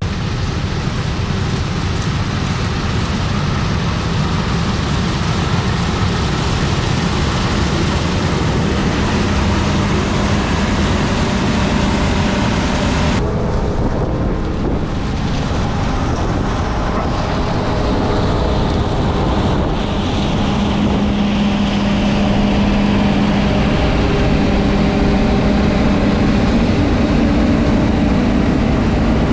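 Tractor engine running steadily while under way, with a constant low hum and wind noise on the microphone.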